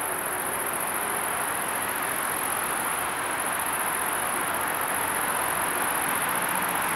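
Steady road noise from approaching traffic, slowly growing louder toward the end, over a constant high-pitched insect chirring from the roadside grass.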